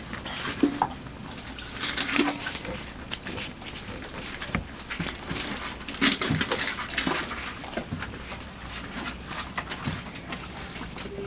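Five-week-old Labrador puppies scrabbling, chewing and tussling on a cardboard box: irregular scratching, rustling and tapping, with a few short puppy squeaks.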